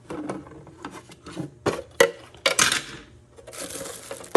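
Removable plastic water tank of a dehumidifier being handled and opened: a series of sharp plastic clicks and knocks with rubbing and rustling, as the stored power cord is taken out of the tank.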